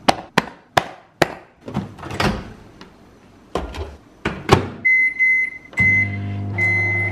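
Sharp clicks and knocks as a plastic ready-meal tray and a microwave oven door are handled, then a few short high beeps from the microwave's keypad about five seconds in, and the microwave oven starting to run with a steady hum near six seconds.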